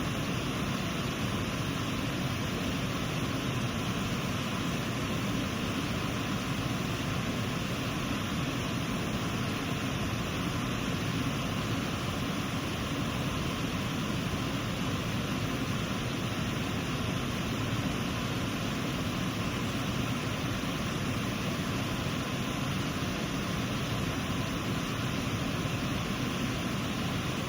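Elk River water rushing over a waterfall and rapids: a steady, unbroken roar of falling and flowing water.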